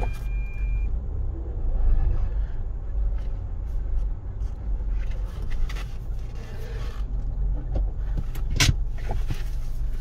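Tata Altroz driving over a dirt road, heard from inside the cabin: a steady low rumble of engine and tyres. A short high beep sounds in the first second, and there is a sharp knock a little after eight seconds.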